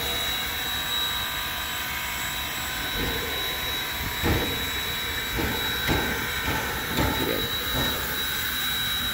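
Standing 2-6-6-2 steam locomotive hissing steam, with a steady high whine and irregular soft thuds from about three seconds in.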